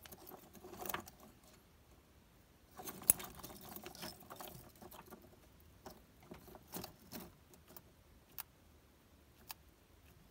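Ocellated lizard seizing and eating a dubia roach on pine-bark substrate: faint rustling and scrabbling of claws and bark chips, with scattered sharp clicks from the bite and chewing. The rustling comes in bursts about a second in and again from about three to five seconds, then a few single clicks near the end.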